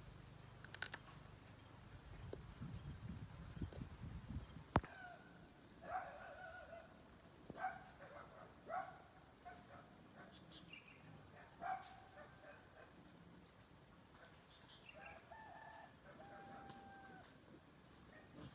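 Domestic chickens calling: a string of short calls every second or two from about five seconds in, and a longer held call near the end. Before the calls there is a faint low rumble and a single sharp knock.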